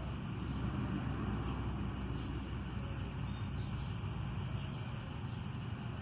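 Steady outdoor background noise: a low rumble under a soft, even hiss.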